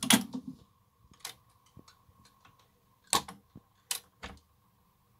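Philips GF 660 record changer running its auto-change cycle: a sharp clack as it trips, a few lighter clicks, then three clunks near the end as the tone arm swings clear and the next 45 rpm single drops from the spindle.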